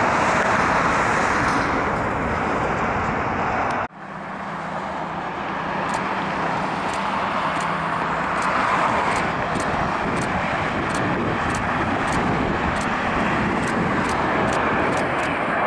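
Boeing 767-200ER jet engines running, a steady loud rush of engine noise. The sound breaks off abruptly about four seconds in and resumes at once.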